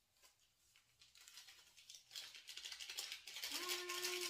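Paper sachets of vanilla sugar being torn open and crinkled, faint at first and growing louder over the last two seconds. A brief steady hum sounds near the end.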